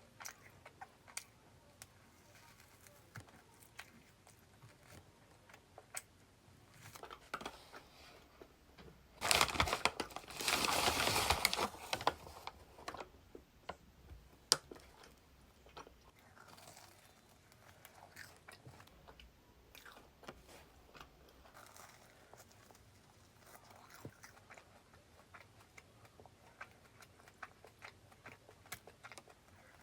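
Close-miked eating of crusty salt bread: quiet chewing with small crunches and clicks, and a louder rustling, crunching burst lasting about three seconds, starting about nine seconds in.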